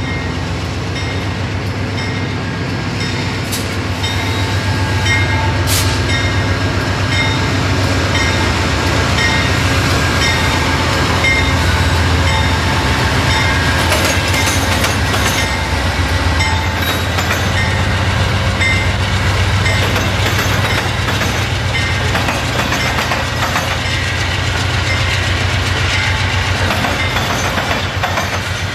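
Amtrak GE Genesis diesel locomotives pulling a passenger train slowly past at close range. The engines make a steady low rumble, and the wheels click rhythmically over rail joints.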